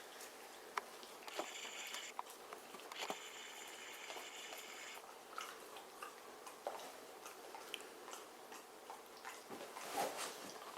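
A dog chewing and gnawing, heard as faint scattered clicks and taps, with two stretches of high, steady squeaking, one about a second and a half in and a longer one from about three to five seconds.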